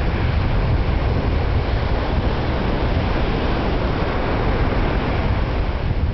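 Wind buffeting the microphone in a steady, rumbling rush, with no distinct events.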